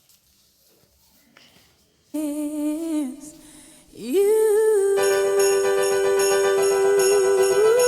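Christmas-style music with jingle bells starts about two seconds in: a short sung or hummed phrase, then a long held note that rises in at about four seconds, with jingle bells ringing over it.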